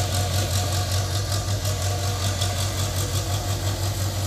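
JCB tracked excavator's diesel engine running steadily, a low even hum.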